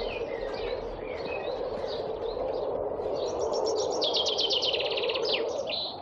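Songbirds chirping outdoors, with one fast, even trill about four seconds in that ends in a short downward flourish, over a steady background hiss of outdoor noise.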